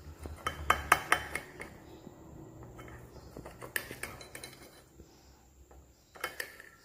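Knife cutting an omelette on a plate, the blade clicking and scraping against the plate in a quick cluster of sharp strokes about a second in, then again near four seconds and near the end.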